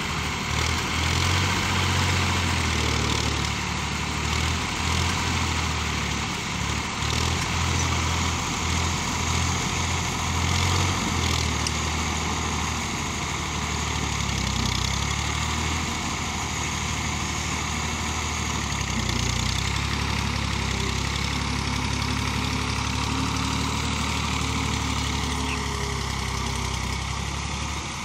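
Massey Ferguson 240 tractor's three-cylinder diesel engine running steadily under load while pulling a rear blade that scrapes and levels soil.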